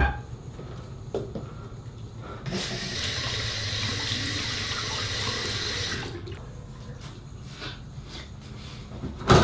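Restroom sink tap running onto hands being washed for about three and a half seconds, then cutting off. A single sharp knock near the end.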